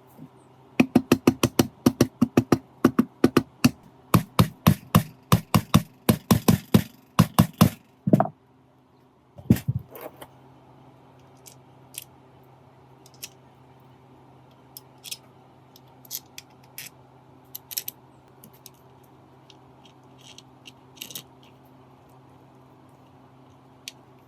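Hand tools working on metal: a quick run of sharp metallic knocks, about three or four a second, for the first eight seconds, then two heavier thuds and, after them, scattered light clicks.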